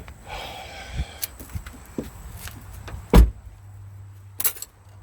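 Newly installed front seatbelt in a 2003 Acura MDX being pulled out and let back, the webbing running freely through the retractor with a brief whir, then several light clicks. A loud thump comes about three seconds in, and a short rattle near the end.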